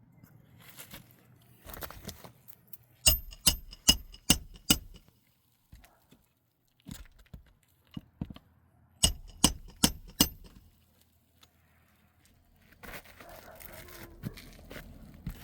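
Two runs of sharp ringing taps, as of a hard tool striking metal or glass: five quick strikes, then after a pause four more, with quieter handling and scraping noises between.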